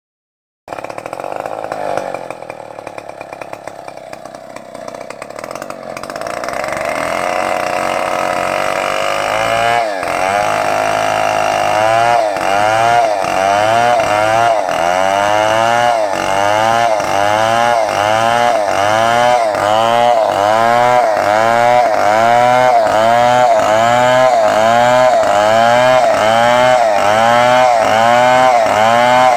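Stihl MS 381 two-stroke chainsaw cutting through a felled coconut palm trunk at high revs. It starts quieter, grows louder about seven seconds in, and from about ten seconds in the engine note wavers up and down in a steady cycle, a little more than once a second, as the chain works under load in the wood.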